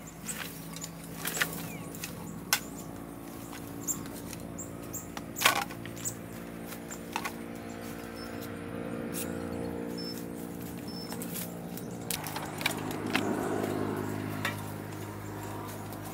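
A small engine running steadily at low speed, with scattered sharp clicks and knocks over it; the hum gets stronger about three quarters of the way through.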